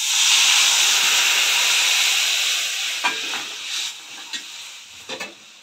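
Loud sizzling hiss as dal cooking water (yelvani) is poured into a kadhai of hot oil and fried masala. It dies away over about four seconds as the liquid settles, with a few light knocks near the end.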